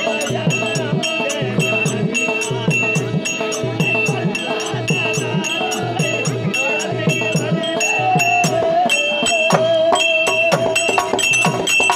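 Therukoothu folk-theatre accompaniment: a barrel drum beating a steady rhythm, small metal hand cymbals ringing in regular time, and a steady drone. A melody line slides up and down in pitch about eight seconds in.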